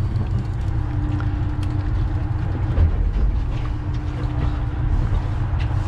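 A fishing boat's engine running, a low steady rumble with a constant hum.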